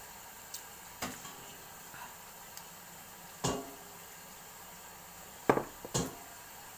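Kitchenware being handled: seven separate knocks and clinks, the loudest about five and a half seconds in, over a steady hiss.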